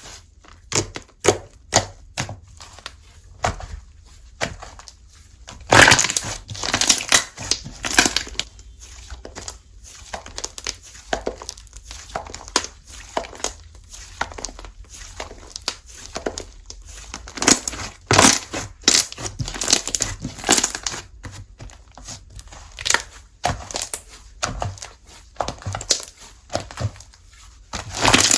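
Slime being squeezed, poked and stretched by hand, giving irregular sticky crackles and pops, with louder clusters of crackling every few seconds.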